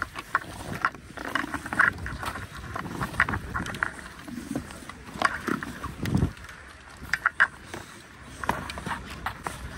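Skis scraping and pole tips crunching on hard-packed snow as a skier shuffles along flat ground, in irregular steps.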